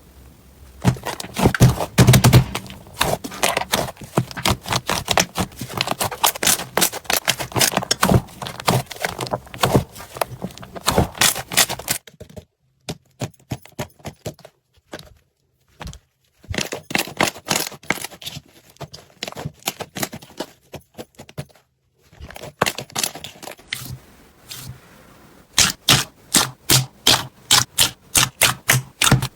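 Slime being squeezed and poked by hand, a run of sticky clicks, pops and crackles. There is a quieter stretch around the middle, and near the end the clicks come steadily at about three a second.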